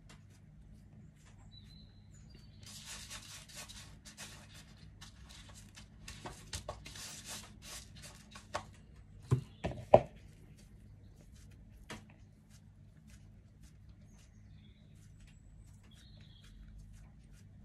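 Hands mixing and rubbing glutinous-rice flour dough in a plastic bowl: soft rustling and scraping in stretches with small clicks, and two sharp knocks about half a second apart just past the middle.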